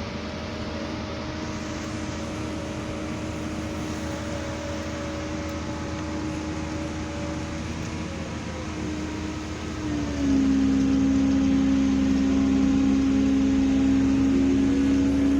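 Volvo excavator running with a steady mechanical hum and whine. About ten seconds in it gets louder and its pitch drops a little.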